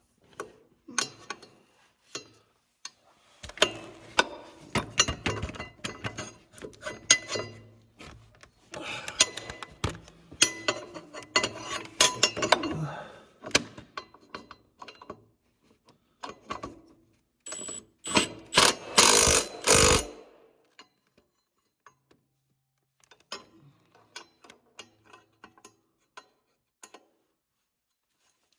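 Hand tools on metal: ratchet clicks and wrenches and bolts clinking in irregular runs. A few louder clanks come about two-thirds of the way in.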